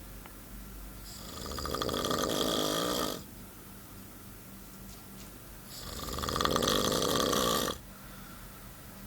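Snoring in a slow, regular rhythm: two long snores of about two seconds each, one starting about a second in and one near the middle, each swelling and then cutting off sharply, with quieter gaps between.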